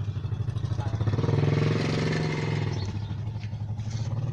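A vehicle engine running with a fast, even pulse. It revs up about a second in and settles back down near the three-second mark.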